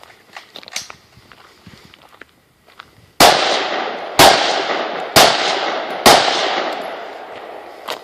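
AR-15 rifle firing blank rounds: four shots about a second apart, each followed by a long echoing tail. Before the first shot come a few seconds of light footsteps and small clicks.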